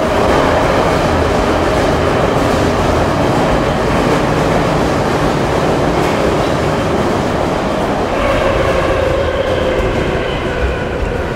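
Ezh3 metro car running at speed, heard from inside the passenger saloon: a loud, steady rumble and rushing of wheels on rail. About eight seconds in, a higher tone comes through the noise.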